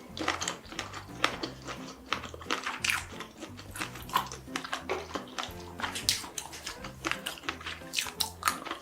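Close-miked mukbang eating sounds: a person's wet chewing, biting and lip smacking, many short sharp clicks and smacks in quick irregular succession, over faint background music with low notes.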